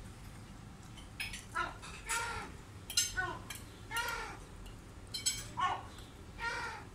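Yellow-legged gull calling repeatedly, short calls that rise and fall in pitch, about one a second. Light clinks of cutlery on dishes come in between.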